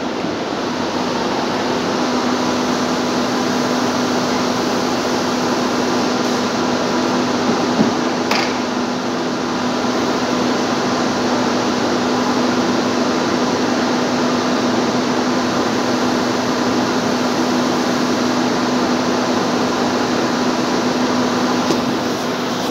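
Steady machine hum, like a ventilation fan or air-conditioning unit running, with one constant low tone.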